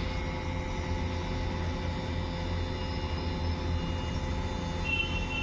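Air-conditioning unit running: a steady mechanical hum with a strong low drone and a faint high tone joining near the end.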